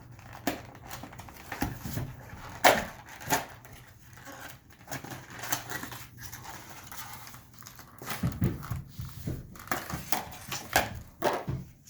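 Cardboard and plastic packaging of a Pokémon card deck box being ripped open and handled by hand: a run of irregular tears, crinkles and sharp taps, busiest in the second half.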